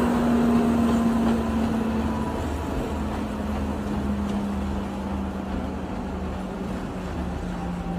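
Train moving away, its engine drone slowly dropping in pitch over a low rumble and fading.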